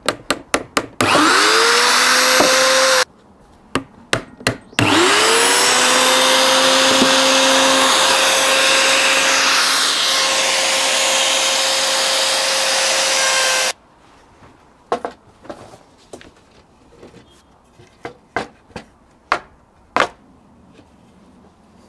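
A few hammer knocks on an electric router, whose motor whines up to speed, runs about two seconds and stops. After two more knocks it spins up again and runs steadily for about nine seconds before cutting off, followed by scattered clicks and knocks. The router's motor sticks and needs a knock with a hammer to get it going.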